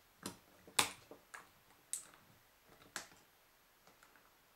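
A handful of sharp metal clicks at irregular intervals, the loudest about a second in, as a screwdriver tip prises the retaining clip off the electric meat grinder's gear shaft.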